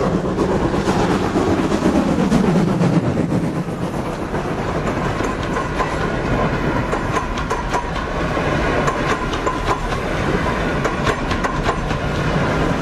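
Model railway train running along the track, its wheels clicking over the rail joints over a steady motor hum. The hum drops in pitch over the first few seconds.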